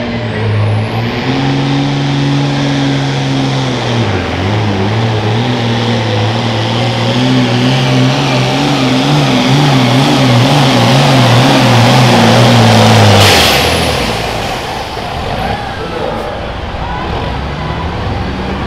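Turbocharged diesel engine of an International Harvester pulling tractor at full throttle under load, pulling a weight-transfer sled. Its pitch dips briefly about four seconds in and wavers near the end. About thirteen seconds in the engine note drops off abruptly with a short burst of hiss, and a lower, rougher sound carries on.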